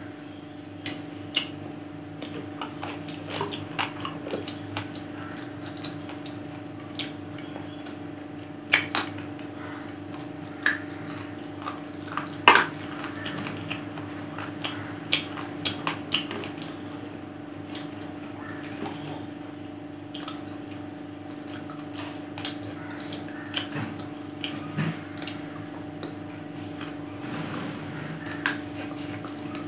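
Close-miked eating of chicken biryani by hand: chewing and mouth sounds with frequent small clicks and taps of fingers and food against a plate, a few sharper than the rest, over a steady low hum.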